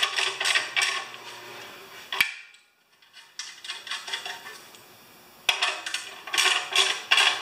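Hand socket ratchet clicking in quick runs and metal tools clinking as bolts are tightened. A single sharp click comes about two seconds in, then a short lull, then more bursts of clicking near the end.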